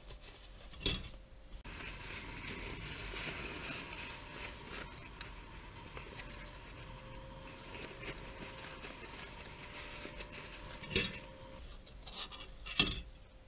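Thin white wrapper around a set of airline cutlery crinkling and rustling as it is handled. Three sharp clinks or knocks come through, one about a second in and two near the end, the second of these the loudest.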